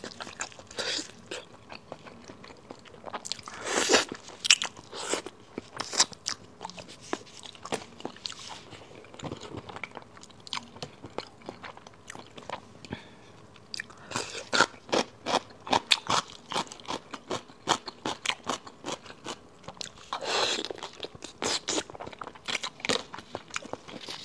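Close-miked eating of braised pig's trotters: biting into and chewing the soft skin and meat, an irregular run of sharp smacking clicks with louder bursts about four seconds in and again near twenty seconds.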